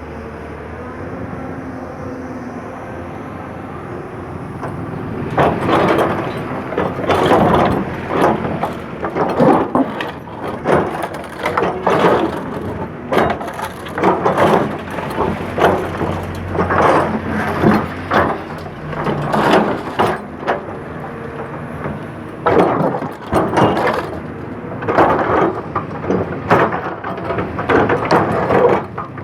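Excavator's diesel engine running steadily, then from about five seconds in a long run of irregular loud cracking and crunching crashes as the bucket digs into and moves broken road material.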